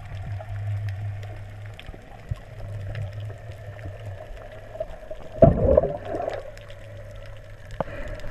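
Underwater sound picked up by a camera in its waterproof housing: a steady low hum with scattered faint clicks. About five and a half seconds in comes a loud rush of bubbles lasting about a second.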